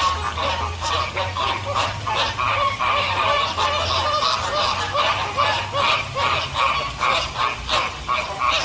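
A flock of waterfowl calling: many overlapping short calls, several a second, over a low steady rumble.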